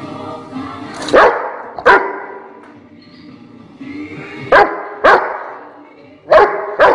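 Rottweiler barking in pairs: six short, sharp barks, two about a second in, two more past the middle and two near the end.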